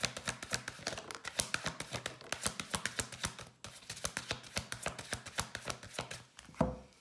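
Deck of tarot cards being shuffled by hand: a fast, continuous run of card clicks, then one louder thump near the end.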